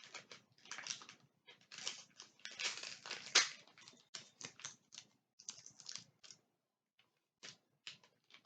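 Paper wrapping being torn and crinkled in irregular bursts as a present is unwrapped, thinning out to a few light clicks near the end.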